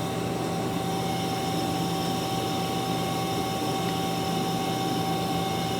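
Mazak Quick Turn Nexus 250MS CNC turning centre running with a steady hum and a constant high whine.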